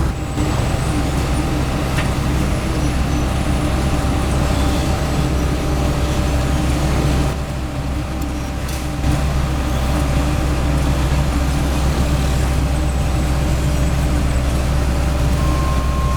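Heavy diesel machinery running steadily, an asphalt paver working with a dump truck. The drone eases a little about seven seconds in, then picks up again.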